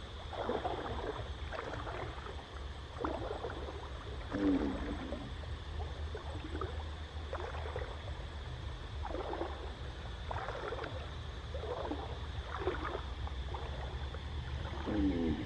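Water splashing and sloshing in a shallow stream as a person wades and grabs at a fish with bare hands, in short irregular splashes. A low bird call sounds twice, about four seconds in and near the end.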